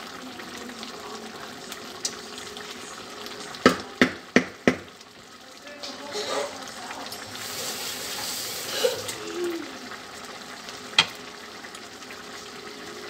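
Pot of rice and pigeon peas boiling hard, a steady bubbling. A few seconds in come four quick sharp knocks, the wooden stirring spoon tapped against the pot.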